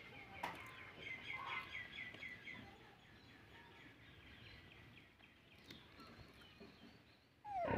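A bird chirping a quick run of short, falling notes, about four a second, for the first couple of seconds over faint yard background. Near the end comes a short, loud falling squeal.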